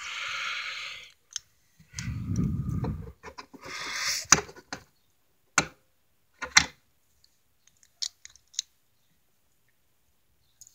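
Handling noise: a few brief rustles followed by a handful of sharp, separate clicks.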